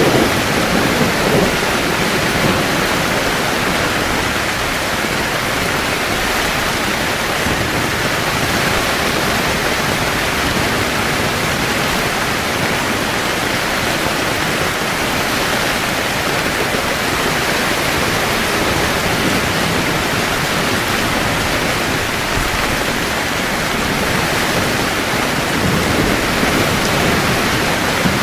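Heavy rain falling steadily on a camping tent, with low thunder rumbling near the start and again near the end.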